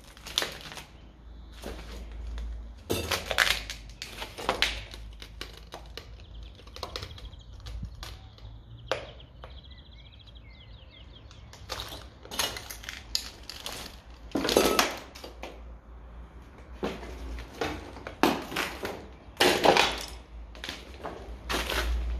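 Footsteps crunching over a debris-strewn floor, with irregular cracks and clinks of rubble and broken material underfoot. The crunches come in clusters, quieter for a few seconds near the middle.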